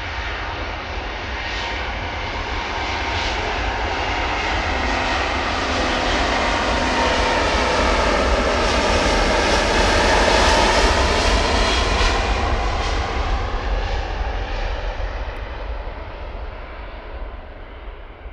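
Airbus A350's Rolls-Royce Trent XWB jet engines at takeoff power as the airliner departs past, the roar building to its loudest about ten seconds in, with a shifting swirl of tones as it goes by, then fading away.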